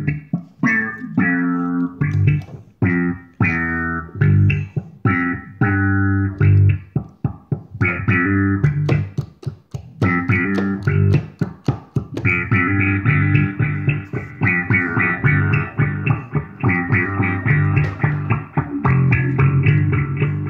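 Electric bass played through effects pedals, a rhythmic plucked riff of short, punchy notes. A run of sharp, clicky notes comes near the middle, and a fuller, denser layer of sound joins about twelve seconds in.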